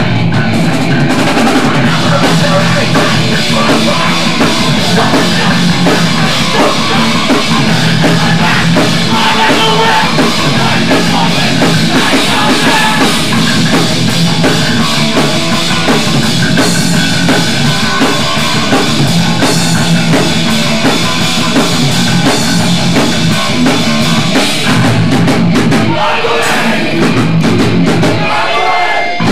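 Loud hardcore punk song played by a full band, with distorted guitars and a driving drum kit, dense and unbroken, with little or no singing.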